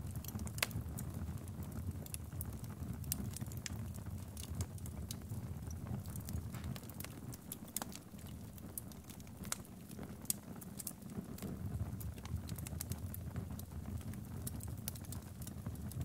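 Wood fire burning in a fireplace: a low steady rumble with frequent, irregular crackles and pops from the burning logs and embers.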